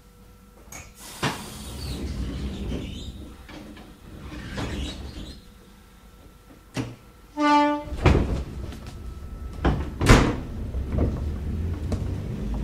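Inside an old-type electric car (KuMoHa 61) standing at a station: scattered knocks and door thumps, a short signal tone about two thirds in, then a heavy low rumble with loud clanks as the car starts off on its departure.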